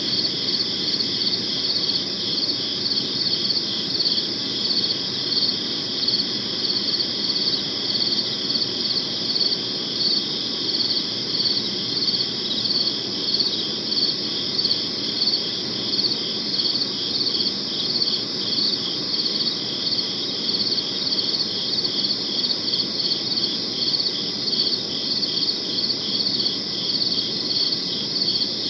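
Crickets chirping steadily in repeated, evenly spaced pulses, over a faint low background hum of night ambience.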